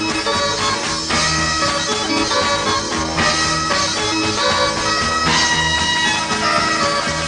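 Music from a 1960s beat-group recording, a band with electric guitars, with held reedy high tones sounding over the band.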